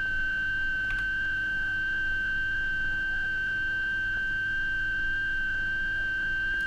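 A steady high-pitched electronic sine tone, part of a film soundtrack's sine-wave glissando that climbs too slowly to hear any change in pitch here. A faint click comes about a second in.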